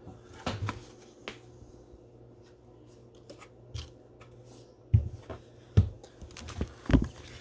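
Cello packs of trading cards being handled and set down on a table: light rustling and clicks, with a few soft thumps in the second half.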